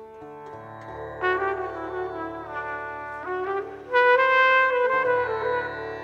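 Pocket trumpet playing a slow phrase of held notes over a steady drone. It comes in about a second in and is loudest from about four seconds.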